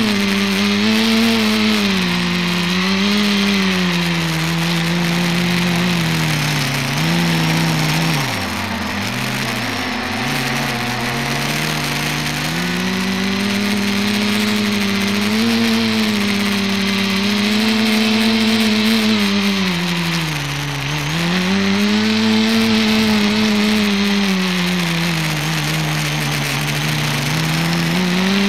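Motors and propellers of an ETFD2 flying-disc multicopter, heard from its onboard camera: a steady whirring whose pitch rises and falls with the throttle, dropping sharply twice about a third of the way in and once more about three-quarters through.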